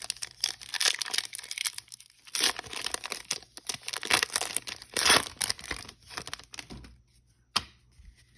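Plastic wrapper of a trading-card pack being torn open and crinkled, in crackly bursts for about six seconds, then a single sharp click near the end.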